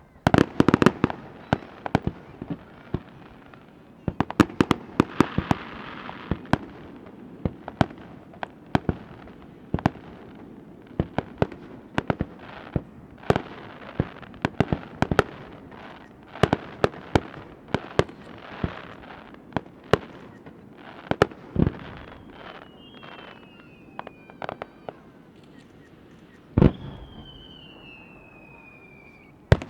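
Aerial fireworks shells bursting in a rapid series of sharp bangs and crackles, dense in the first half and thinning out later. Near the end a single loud bang is followed by a long whistle that falls in pitch.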